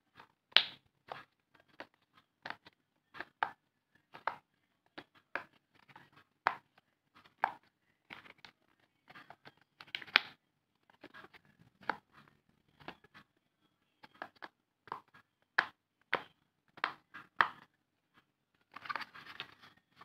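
Silicone pop-it fidget toy bubbles being pressed in one by one with a finger, each giving a short pop, irregularly at about one or two a second. A brief rustle near the end.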